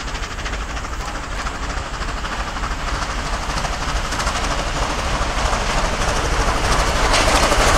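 Nickel Plate Road steam locomotive approaching at speed on the main line, the sound of its engine and wheels on the rails growing steadily louder as it nears and loudest near the end.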